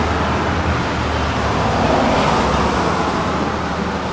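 A steady, even rushing noise with a low hum underneath, holding at about the same loudness throughout.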